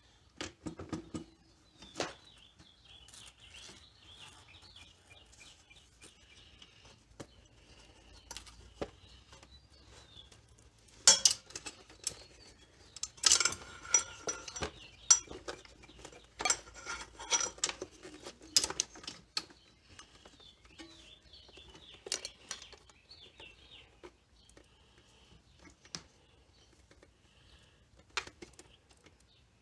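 Intermittent metallic clinking, clicks and rattles from hands working a throttle cable and metal parts through a scooter's frame, with a denser burst of clatter about midway.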